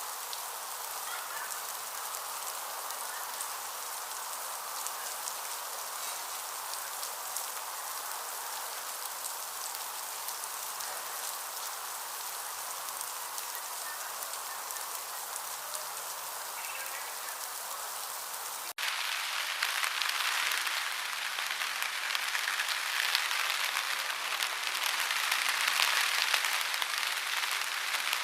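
Steady rain falling. About two-thirds of the way through it cuts suddenly to a louder, brighter downpour.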